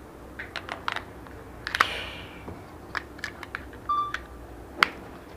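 Plastic clicks and snaps of batteries being fitted into a soundbar remote control and its battery cover being handled, several sharp clicks with the loudest near the end. A short beep sounds just before four seconds in.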